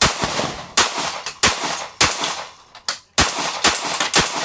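Semi-automatic pistol fired in a steady string of about seven shots, roughly one every half to two-thirds of a second, each a sharp crack.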